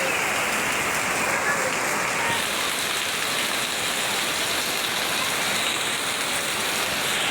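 Heavy rain falling steadily, a dense, even hiss of drops on surfaces.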